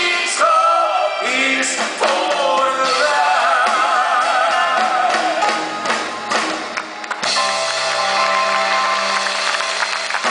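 Male voices singing a Dutch ballad duet over a live band, with long wavering notes. The singing stops about seven seconds in and the band plays on.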